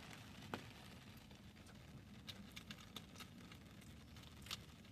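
Near silence: faint background hiss with a few soft, scattered ticks.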